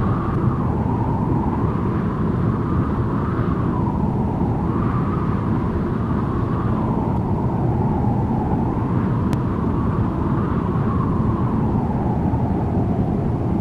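Airliner cabin noise during the approach to landing: a steady low rumble of engines and airflow, with a droning engine tone that slowly wavers up and down.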